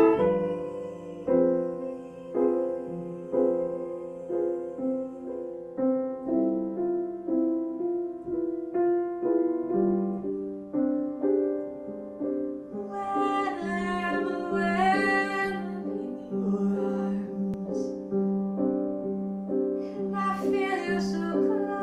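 A grand piano played in a steady, even rhythm of chords, with a woman's singing voice coming in about halfway through and again near the end.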